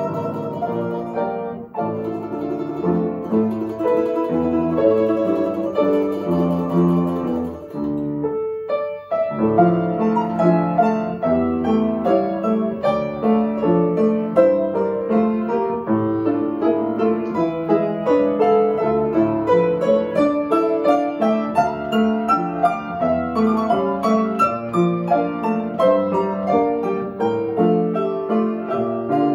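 Domra and grand piano playing a duet: quick plucked notes over piano accompaniment, with a brief break about eight and a half seconds in before the music resumes.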